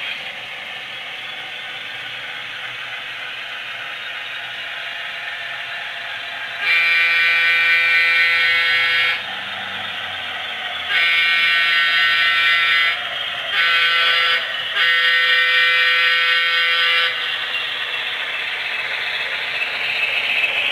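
A model diesel locomotive's onboard sound system blowing a multi-note horn in the grade-crossing pattern (long, long, short, long), over the steady running and rail clatter of model trains on the track.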